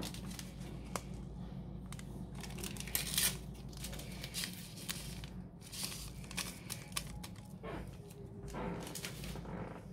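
A small packet of vanilla crinkling and tearing as it is handled, opened and emptied into a mixing bowl: a run of short rustles and clicks.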